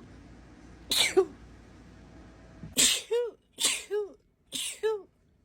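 A woman sneezing four times in a fit, each a sharp burst of breath ending in a short voiced 'choo'. The last three come quickly, under a second apart.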